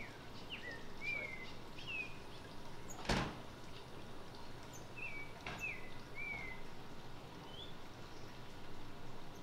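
Outdoor ambience with a bird repeating short whistled notes, some falling and some rising, over a steady background hiss. A sharp knock about three seconds in and a fainter click a couple of seconds later.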